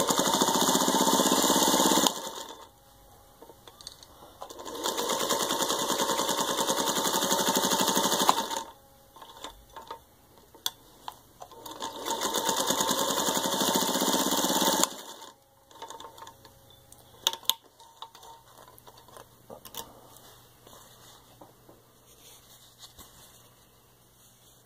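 Singer 301 sewing machine stitching through six layers of denim, run at speed in three bursts of about two, four and three seconds. Scattered clicks and handling sounds follow.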